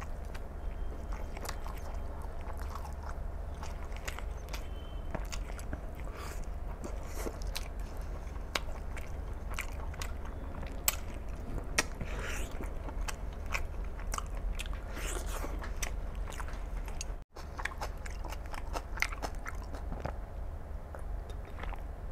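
Close-miked chewing of mutton curry and rice: wet smacking and many sharp mouth clicks as a man eats by hand. A steady low hum runs underneath, with a brief dropout about 17 seconds in.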